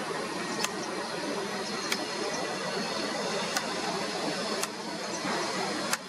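Steady background hiss with five sharp clicks spaced about a second or so apart.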